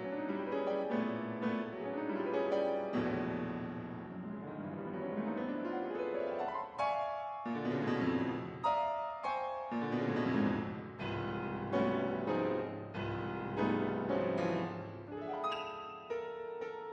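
Piano music, with quick rising runs of notes over a steady accompaniment.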